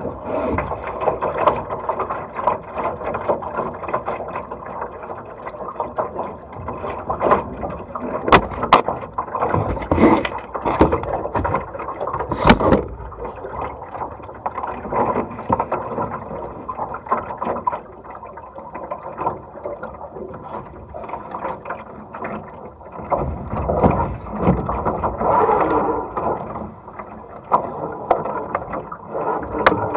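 Laser sailing dinghy underway: steady rush and slosh of water along the hull with wind on the microphone, broken by a few sharp knocks.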